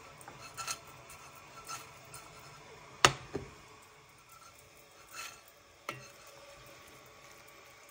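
Light clinks and knocks of cookware on a glass-topped induction hob, a few scattered through, with one sharp knock about three seconds in (the loudest) and a smaller one just after it. A faint low hum runs underneath.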